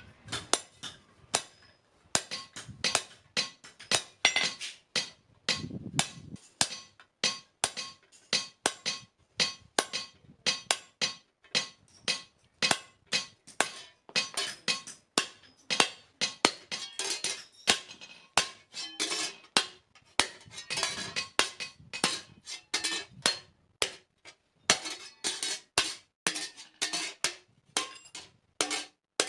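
Blacksmith's hammer blows on steel on an anvil, forging a spade blade: a fast, uneven run of metallic strikes, about two to four a second, with the anvil ringing under them.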